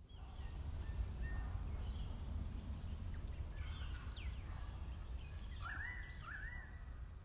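Birds calling over a steady low rumble, with two rising-then-falling calls close together near the end.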